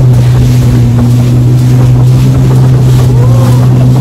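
Jet ski engine running at speed, a steady drone held at one pitch, with wind buffeting the microphone and water rushing past.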